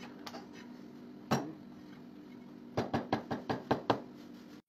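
Knife chopping on a cutting board: a single chop about a second in, then a quick run of about seven chops near the end.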